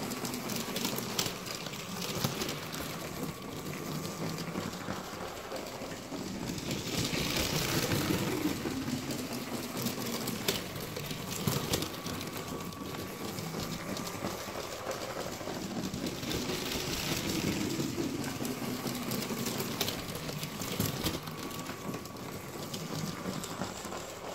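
Lego train running on plastic Lego track, driven by a Power Functions train motor: a steady whir with a faint motor whine and a patter of small clicks as the wheels cross track joints. It grows louder twice, about 7 and 17 seconds in, as the train passes close.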